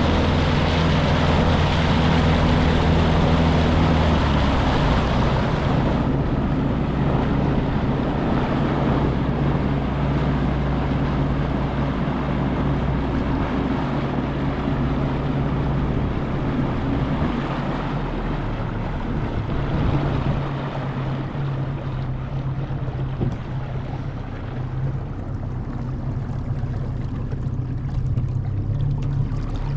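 Boat's outboard motor running steadily under way, with water rushing past the hull and wind on the microphone.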